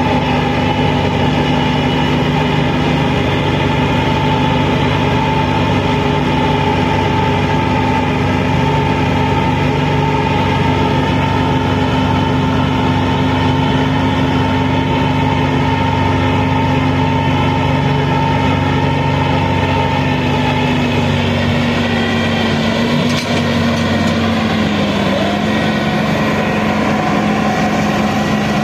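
Tractor diesel engine running steadily, a constant drone with a whine on top. Its pitch drops a little about three-quarters of the way through.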